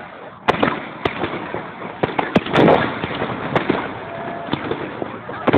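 Aerial fireworks display: a rapid series of bangs and crackling bursts, with a sharp bang about half a second in and a thicker rush of crackling near the middle.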